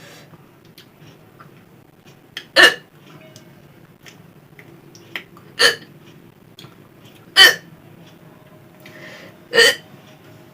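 A person hiccupping four times, about two seconds apart, each hic short, sharp and loud.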